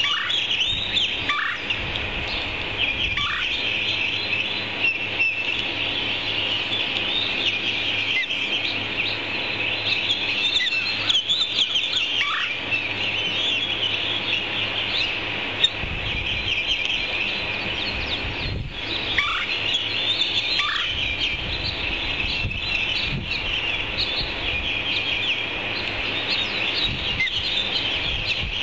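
Ospreys calling at the nest: a continuous run of rapid, high chirps, with a few short downward-sliding calls scattered through, over a steady low rumble.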